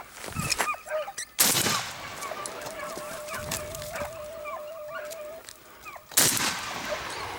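Two shotgun shots about five seconds apart, each trailing off in a short echo. Between them, hunting hounds yelp as they give tongue on a hare's trail.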